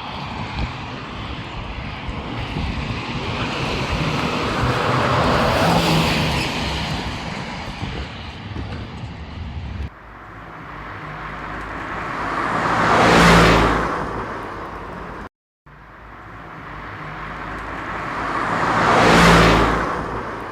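Vehicles passing by. A long swell of engine and tyre noise peaks about six seconds in. After an abrupt break, two more vehicles go past one after another, each rising to a peak and fading away.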